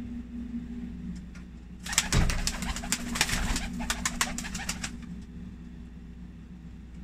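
Pigeons' wings flapping in a flurry: a run of rapid, sharp wing claps and rustling lasting about three seconds, starting about two seconds in.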